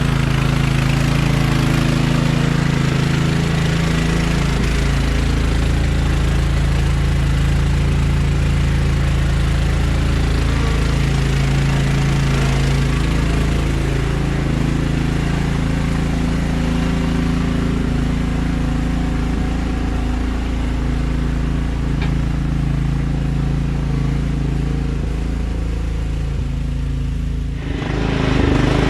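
Kohler Command engine on a Craftsman LT1000 lawn tractor running steadily. Near the end the sound changes abruptly.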